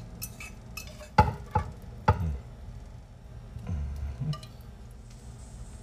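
Cookware clinking and knocking against serving bowls as rice is tipped from a pot and chicken is scooped from a skillet with a fork: three sharp knocks about a second in, then a few duller thumps near four seconds.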